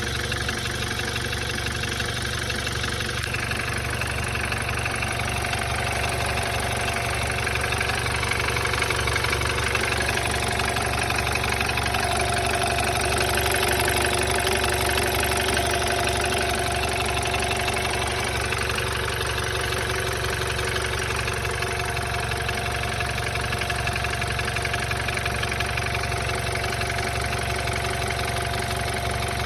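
BMW 528i engine idling steadily with a knocking in it. The owner cannot tell whether the knock is a fault or a normal sound.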